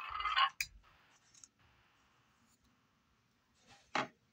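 Electronic roar from the Battle Roar Godzilla figure's built-in sound speaker, cutting off about half a second in, followed by light plastic clicks as the figure is handled, the sharpest near the end.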